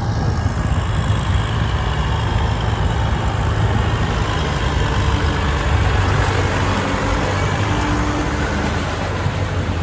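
Kubota tractor diesel engine running steadily under load, driving a rotary tiller through wet paddy mud.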